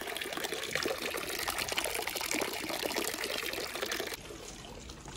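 A thin stream of water pouring from a wooden fountain spout and splashing steadily into a full wooden trough. It cuts off suddenly about four seconds in.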